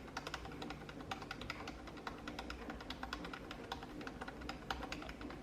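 A computer keyboard's F10 key pressed rapidly and repeatedly, a quick run of clicks several a second, to get into the BIOS as the machine reboots.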